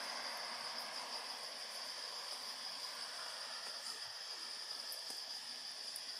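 Steady outdoor ambience: an even, high-pitched hiss that holds without change, with a few faint clicks late on.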